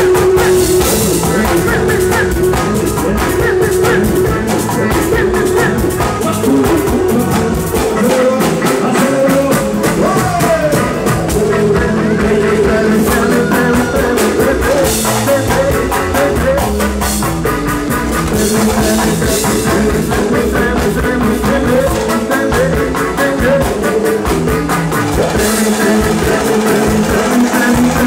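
A live pagode baiano band playing loudly: hand drums and a drum kit driving the rhythm, with electric guitar and a lead singer's voice.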